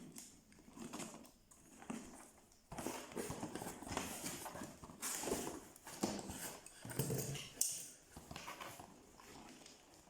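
Packaging being handled: irregular rustling and scraping with scattered knocks and taps, getting busier about three seconds in.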